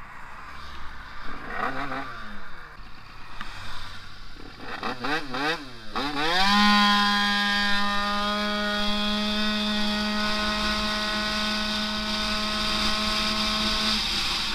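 Tuned Yamaha Aerox scooter's two-stroke engine blipped up and down a few times, then opened to full throttle about six seconds in. The revs climb fast and then hold at one steady high pitch while the CVT shifts up under hard acceleration. The sound cuts off abruptly near the end.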